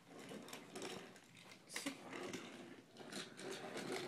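Faint whirring of a small motorized toy train running on plastic track, with irregular clicks and clatter.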